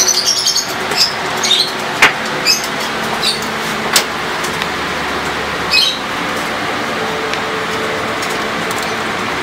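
Scattered light clicks and taps of screws, a screwdriver and metal drive parts being handled in a steel computer case, over a steady background hum and hiss.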